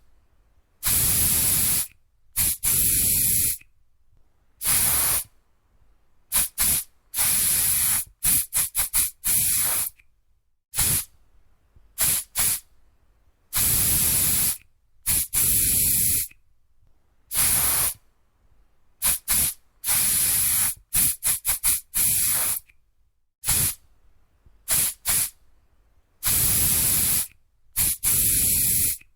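Aerosol spray can being sprayed in repeated bursts of hiss. Some bursts are held for about a second; others are quick short puffs fired in rapid runs, with short pauses between.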